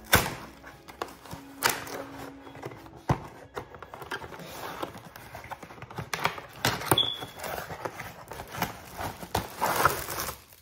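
Cardboard ring-light box being handled and opened: irregular knocks, taps and scraping of cardboard, with a sharp knock at the start and another about three seconds in.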